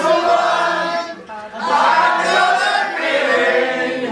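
A group of amateur voices singing together like a choir, holding long notes, with a short lull a little over a second in before the singing swells again.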